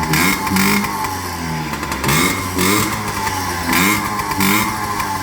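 2004 Yamaha PW50's small air-cooled two-stroke single-cylinder engine running and being revved in short throttle blips, the pitch rising and falling several times. The freshly rebuilt engine is running well.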